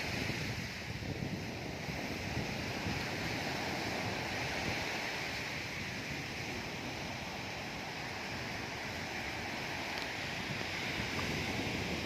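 Steady wash of sea surf on a beach, with wind buffeting the microphone.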